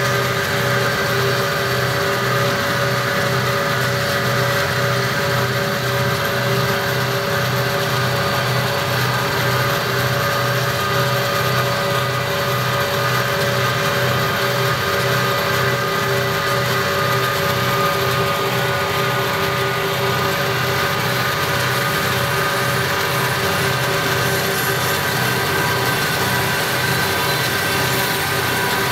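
Steady drone of a freight train's diesel locomotive running at speed, with a regular low throb and several held tones, unchanging throughout.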